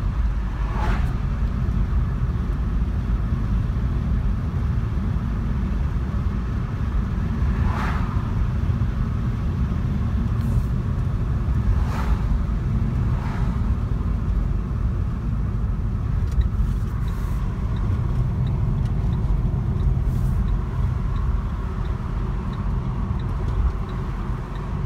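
A car driving along, with a steady low rumble of road and engine noise and a few brief swishes.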